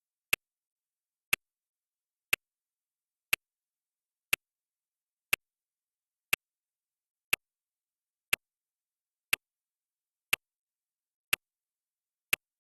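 Countdown timer's clock-tick sound effect: single sharp ticks, one each second, about thirteen in all, with dead silence between them.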